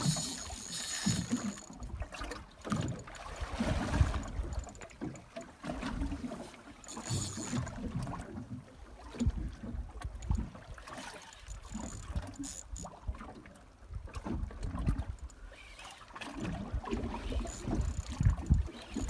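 Water lapping and slapping against the hull of a drifting fishing boat, with irregular low thumps and short hissy washes.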